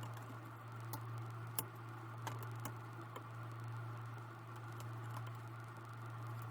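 A few small sharp clicks and taps from handling a laptop's display ribbon-cable connector and plastic parts as the cable is worked free, over a steady low hum.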